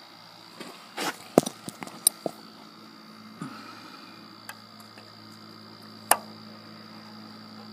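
Steel slip-joint pliers clicking and knocking against the metal terminals and nuts of a motorcycle generator: a cluster of sharp clicks in the first couple of seconds, one near the middle and a loud one about six seconds in, over a faint steady low hum.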